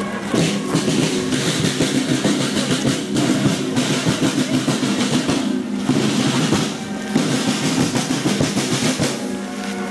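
Marching band on the move: snare and bass drums beating out a dense, rapid march rhythm, with a few steady low brass notes underneath.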